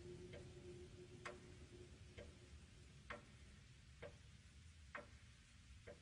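Faint, even ticking, about one tick a second, with a low held tone fading away in the first second or two.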